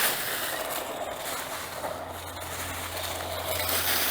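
ASPEXEL 1:16-scale electric remote-control truck driving, its motor and tyres making a steady noise, with a low steady hum joining about a second and a half in.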